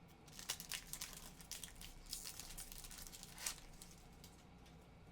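Faint crinkling and tearing of a foil trading-card pack wrapper being ripped open, a run of crackles that dies down after about three and a half seconds.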